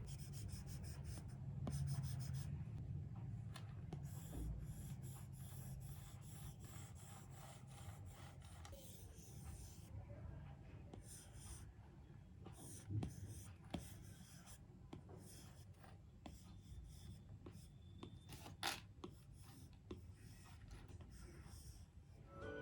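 Apple Pencil nib writing on an iPad screen: faint, intermittent scratchy strokes with a couple of sharp taps.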